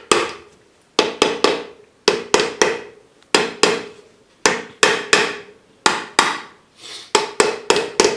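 Plastic hammer tapping a Bajaj Pulsar 220F engine casing part down onto its gasket to seat it: about twenty sharp knocks, mostly in quick runs of two or three, each ringing briefly through the metal.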